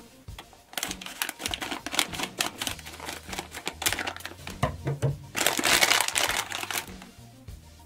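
Crinkling of a foil bath-ball packet as hands handle and open it: dense crackling, loudest and busiest for a stretch starting about five seconds in.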